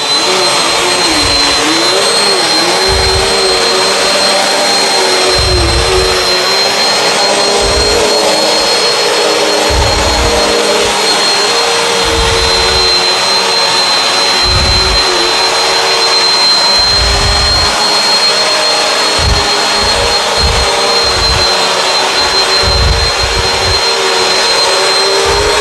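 Bissell CleanView Swivel upright vacuum cleaner running steadily over carpet, with a steady high whine from the motor. Low rumbles come and go irregularly throughout.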